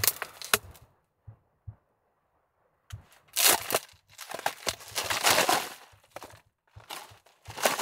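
Plastic drink bottle crinkling and crackling as it is squeezed and turned in the hand, with the partly frozen, slushy drink inside crunching. Crackles come in clusters, with a quiet gap of about two seconds near the start.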